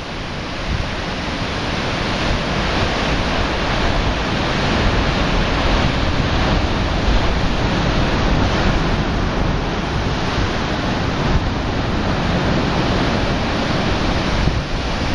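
Sea swell surging and churning through a rock arch: a steady, loud rush of surf that grows a little louder over the first few seconds, with wind buffeting the microphone.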